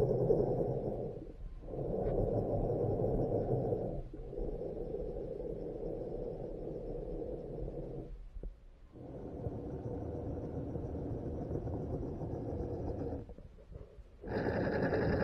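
Muffled water noise picked up by an action camera under the water beneath a LEGO RC ship's hull as its propellers turn. It comes in several stretches, broken by short drops, and grows louder and brighter near the end.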